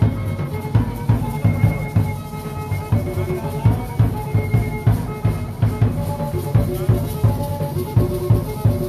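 Danza de pluma music: a drum beating a quick steady rhythm, about three strokes a second, with a simple repeating melody line over it.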